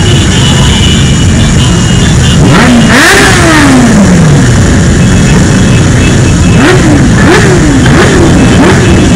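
Many motorcycle engines running together in a loud, steady din. About two and a half seconds in, one engine is revved: its pitch climbs and then falls away slowly. Near the end come a run of about five quick throttle blips in a row.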